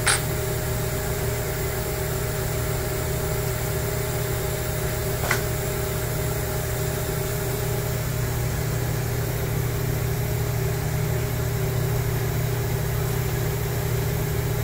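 Steady machine-shop hum: a constant low drone with two steady tones above it. Two short clicks break it, one at the very start and one about five seconds in.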